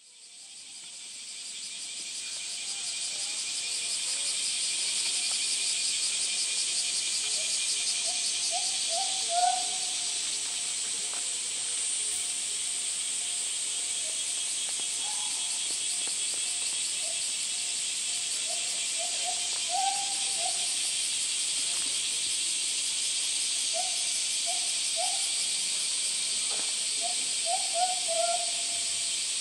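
A dense, steady chorus of summer cicadas, fading in over the first few seconds. A few brief runs of short, low hooting call notes come through underneath.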